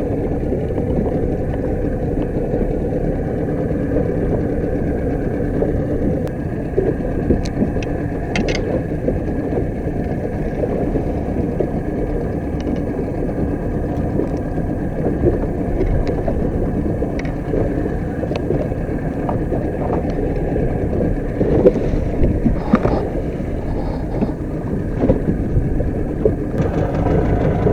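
A boat engine runs steadily, giving a constant low drone, with a few short knocks and clicks scattered through it.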